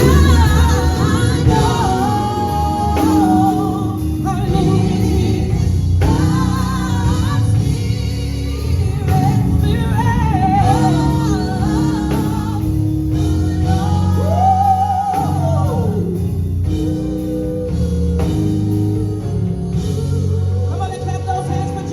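Live gospel music: voices singing over instrumental accompaniment with a steady low bass.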